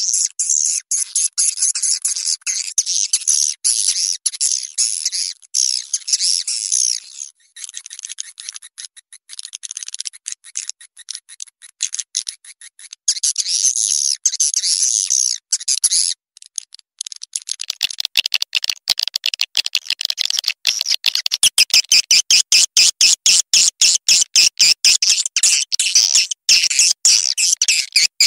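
Blended swiftlet lure-call recording (suara panggil walet), the kind played to draw swiftlets into a nesting house: dense, high-pitched swiftlet twittering and chirping. About two-thirds of the way through it changes to a faster run of sharp, clicking chirps.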